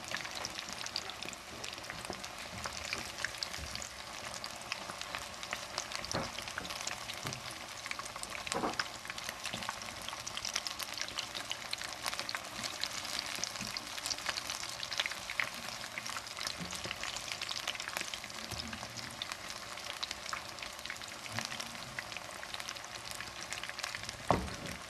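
Marinated chicken wings deep-frying in hot oil in a pan: a steady, dense crackle and sizzle. A few louder knocks come through as a slotted spoon turns the pieces.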